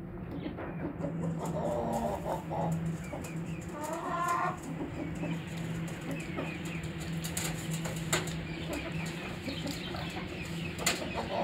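Aseel chickens clucking as they feed together, with short calls and small high peeps, over many sharp clicks of beaks pecking at a metal feed bowl. A steady low hum runs underneath.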